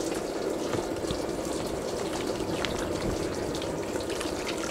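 Sliced wild mushrooms being washed by hand in a plastic basin of water: splashing and dripping as handfuls are stirred and lifted out, over a steady rush of water.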